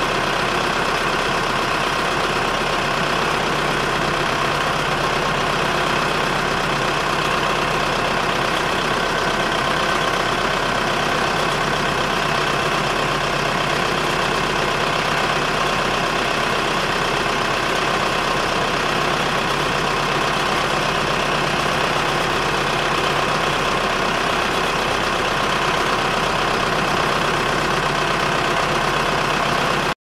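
Diesel truck engine idling steadily.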